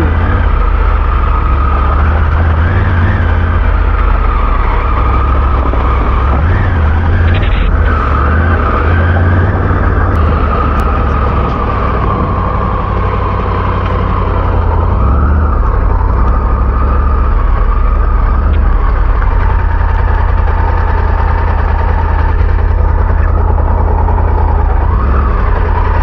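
Adventure motorcycle running steadily at low road speed on a wet, rough road. Its engine note is mixed with a constant low rumble of wind on the rider-mounted camera's microphone.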